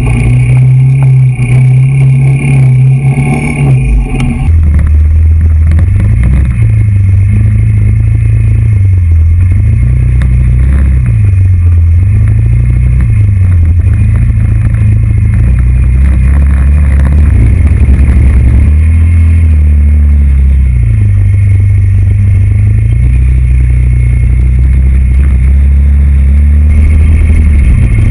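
TGB Blade 425 quad's single-cylinder four-stroke engine running under load, its pitch rising and falling again and again as the throttle is opened and closed. Water splashes from the tyres through a muddy puddle in the first few seconds.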